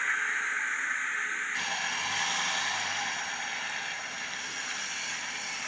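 Steady outdoor hiss with no clear engine sound; its tone shifts about a second and a half in.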